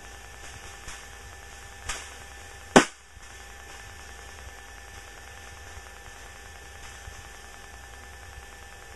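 Steady drone of a light aircraft's cabin in cruise, with a low hum, heard through the headset intercom. Two sharp clicks about two and three seconds in.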